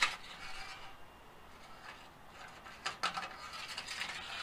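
Light metallic clicks and scraping as a magnetic pickup tool works a valve lifter into place inside a Cummins 5.9 24-valve engine block; a sharp click at the start and another about three seconds in.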